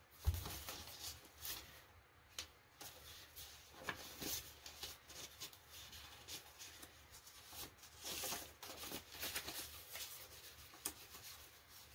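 Faint rustling and soft flicks of paper banknotes being counted through one by one by hand.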